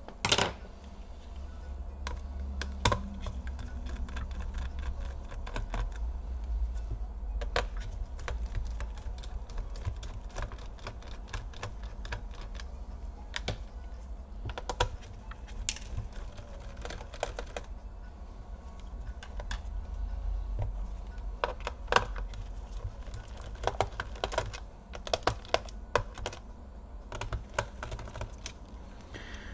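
Irregular small clicks and taps of a screwdriver, screws and the plastic case of an HP EliteBook 2530p laptop being handled while it is taken apart, over a low steady hum.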